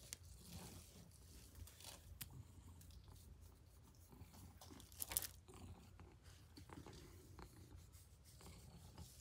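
Near silence with faint rustling and scratching as a hand rubs and scratches a long-haired cat's fur, with a brief louder rustle about five seconds in.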